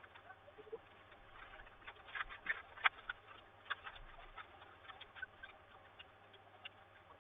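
Light clicks and small scrapes of a laptop RAM module being handled in its slot, with a cluster of sharper clicks about two to three seconds in.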